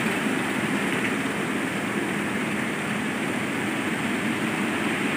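Steady rushing noise of a hydra mobile crane's diesel engine running while it holds and positions a man-basket.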